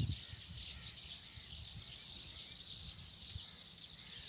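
Outdoor rural ambience: a steady, high-pitched chorus of chirping, with a faint low rumble beneath it.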